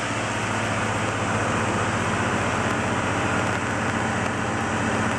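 Okuizumo Orochi trolley train's diesel engine running steadily: a low, even hum over a constant rumble.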